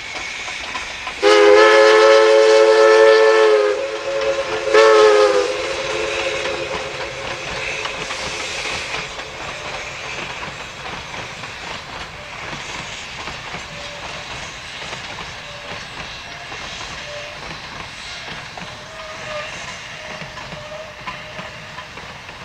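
Steam locomotive whistle: one long blast of a few seconds, then a short blast about a second later. After that the train and its passenger cars roll past on the track, a steady clatter that slowly fades.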